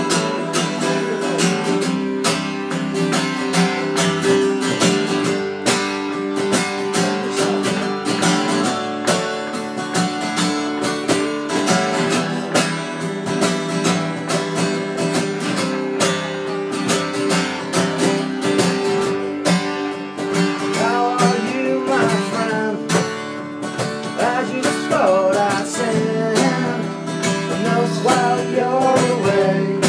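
Acoustic guitar strummed steadily in a rhythmic chord pattern, with a man's singing voice coming in about two-thirds of the way through.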